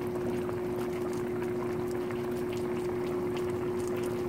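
Pot of rice and red beans simmering in its cooking liquid, a steady fine bubbling and popping, with a steady low hum underneath.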